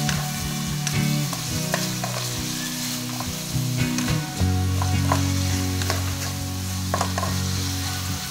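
Chicken and green hyacinth beans sizzling in a metal wok while a wooden spatula stirs them, with scattered sharp clicks of the spatula against the pan. Steady low notes of background music run underneath.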